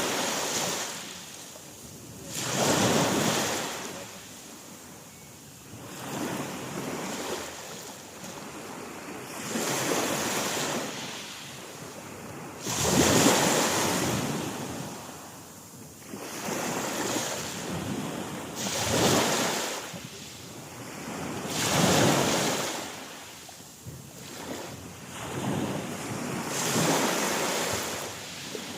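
Black Sea waves breaking on the shore, each surge swelling and falling back about every three seconds.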